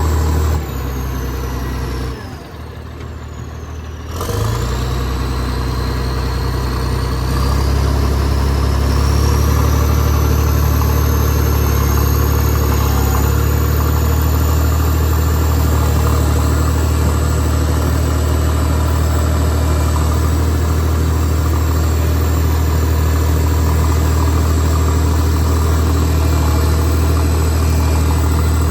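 Diesel engine of a Cat 977H crawler loader dropping in revs, its high whine gliding down, then opening up again about four seconds in. The whine climbs steadily as it revs up and then holds while the engine runs at a steady high speed.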